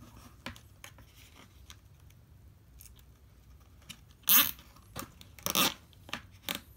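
Nylon zip ties pulled tight through a plastic bucket's rim, with faint handling clicks and then a few short ratcheting zips about four, five and a half and six and a half seconds in.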